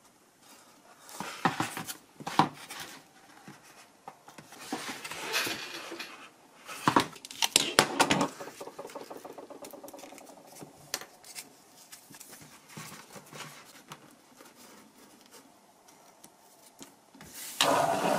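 Hands handling a foam flying-wing airframe and its small motor-mount parts on a wooden workbench: irregular clicks, taps and rubbing, a few louder knocks among them.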